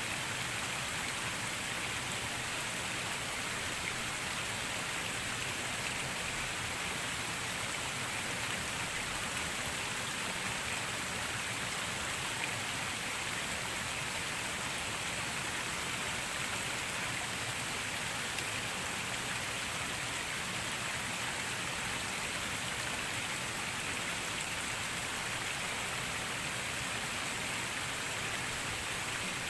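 Steady rain, an even hiss with no breaks.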